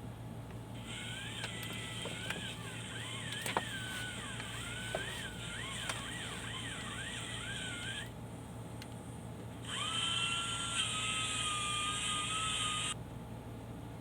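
Angle grinder running in two bursts. In the first, its whine repeatedly rises and falls in pitch over several seconds, with a few clicks. After a short pause it spins up again, holds a nearly steady whine and cuts off suddenly.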